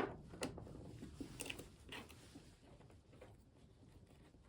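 Faint, scattered small clicks and taps of a hand tool and small screws being worked out of the motorcycle's fuel filler surround.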